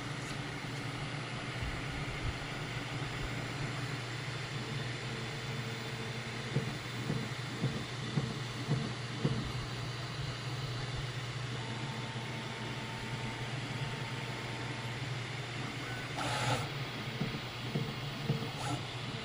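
Bambu Lab P1S 3D printer running, with a steady fan hum and stepper-motor tones that change pitch as the head moves. Irregular knocks and clicks come in a cluster about six to ten seconds in, and a short hiss near the end: the abnormal noise the printer has developed, which the owner suspects is something rattling on its right side.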